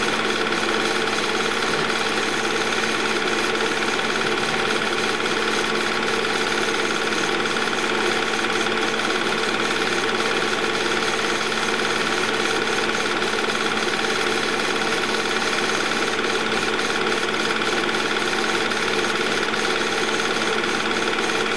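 Film projector running: a very loud, steady mechanical whir with a constant hum and a rapid fine clatter from the film transport.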